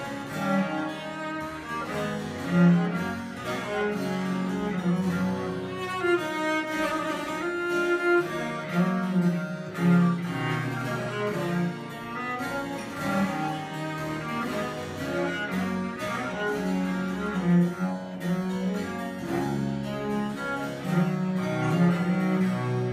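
Viola da gamba playing a melodic line with sustained bowed notes, accompanied by a harpsichord.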